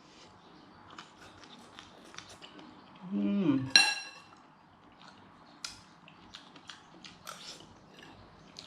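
Cutlery and dishes clinking in small, scattered taps while someone eats, with one brighter ringing clink of metal on a dish just before the middle. A brief falling vocal sound from the eater comes just before that clink and is the loudest part.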